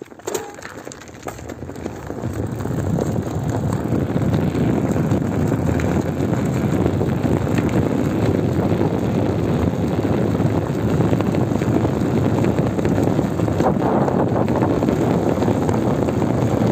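Flat rear tyre of a mountain bike rolling on pavement, the deflated tyre squashed flat under the rim, mixed with wind on the microphone. It builds over the first few seconds as the bike gets up to speed, then holds steady.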